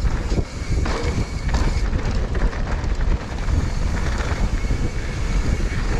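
Wind rushing over an action camera's microphone as a mountain bike rolls fast down a dirt trail, with tyre and trail rumble underneath and a few short knocks as the bike goes over bumps.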